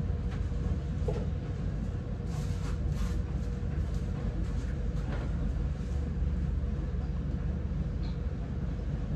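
Steady low hum of a running laundry machine, with a faint constant whine over it. Light rustling and scattered clicks from clothes and the machine being handled sound on top.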